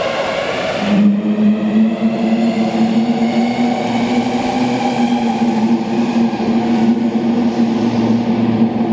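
Sendai Subway 2000 series linear-motor train accelerating away from the platform, its VVVF inverter whining and rising in pitch. About a second in the tone changes to a steady hum, with fainter rising tones above it, as the train runs off into the tunnel.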